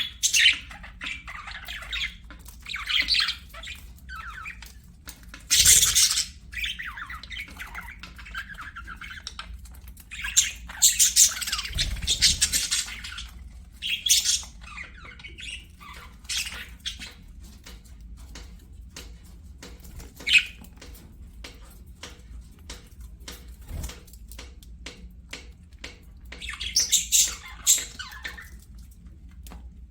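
Budgerigars chattering and squawking in irregular bursts, with a long run of calls around the middle and another near the end, and small clicks and taps between the calls.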